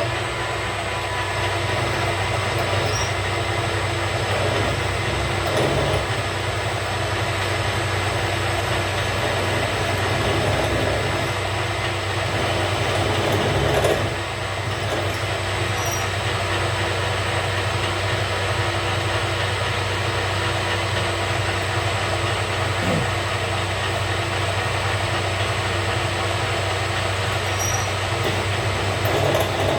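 Metal lathe running steadily while a drill bit cuts a pilot hole into the spinning workpiece. The noise swells briefly about halfway through, then settles back.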